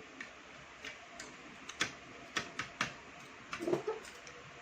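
Spoons and forks clicking against plates during a meal: about eight sharp, irregular clicks.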